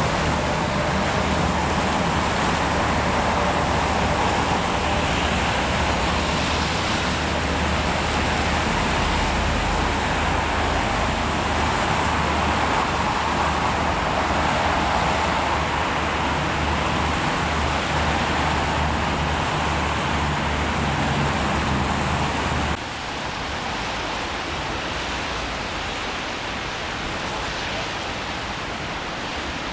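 Steady street traffic noise mixed with a low rumble of wind on the microphone. About three quarters of the way through it cuts off abruptly to a quieter, hissing noise.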